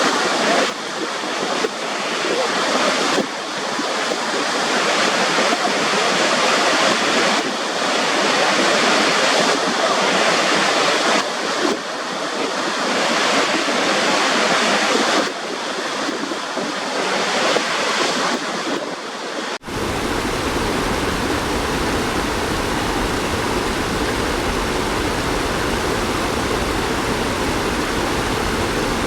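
Waterfall: a loud, continuous rush of falling water. It swells and eases every second or two, then about two-thirds of the way in it cuts abruptly to a steadier, deeper rush.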